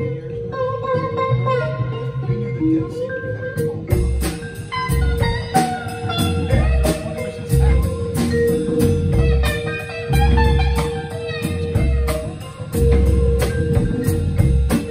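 Live blues jam by a small band: electric guitar, harmonica, vibraphone and upright bass, with drums and hand percussion. The first few seconds are sparse, then the drums and percussion come in with a steady beat about four seconds in.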